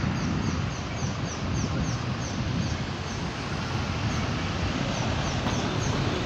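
Street traffic: cars and a pickup truck passing close at an intersection, with wind rumbling on the microphone. Over it, a fast run of short, high chirps, about three a second, stops midway and then starts again.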